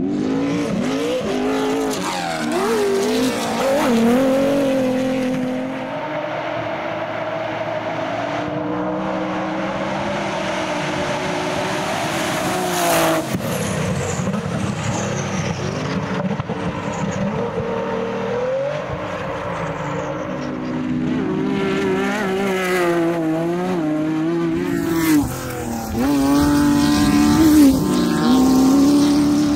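Off-road race cars' engines revving hard at racing speed, the pitch repeatedly rising and falling with throttle and gear changes as the cars pass.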